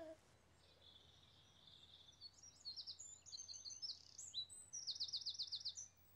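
Faint birdsong: a songbird singing a run of high chirps and quick trills, starting about a second in.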